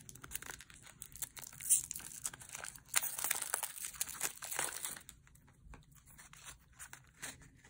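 Thin plastic wrapping crinkling and tearing as it is pulled off a small kraft-paper box of rubber stamps, in irregular crackles that die down to faint handling after about five seconds.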